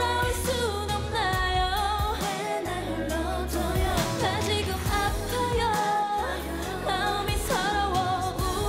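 Female K-pop girl group singing a pop song over its backing track, with a deep, steady bass line under the vocals.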